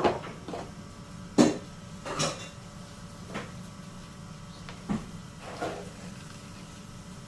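Objects being handled and set down: a handful of separate knocks and clatters, with a low steady hum underneath.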